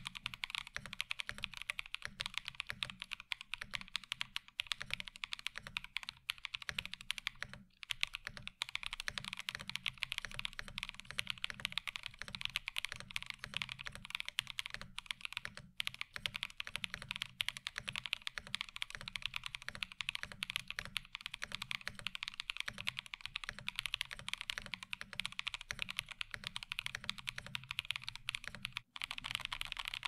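Continuous typing on a Cannonkeys Reverie 65% top-mount metal mechanical keyboard fitted with stock, unlubed Cannonkeys Anubis tactile switches: a steady run of keystrokes with a few brief pauses. The reviewer hears it as flat and hollow, with case ping from metal touching metal that the soft foam does not stop, and with slight ticking from the stock switches.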